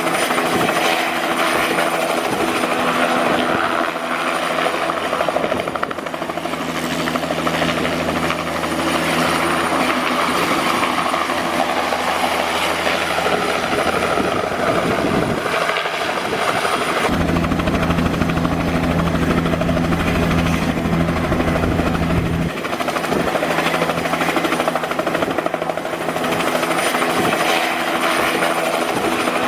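Miniature model engine running steadily and spinning a small helicopter rotor, a continuous buzzing whir. For about five seconds past the middle a deeper, stronger hum comes in, then the sound returns to the lighter buzz.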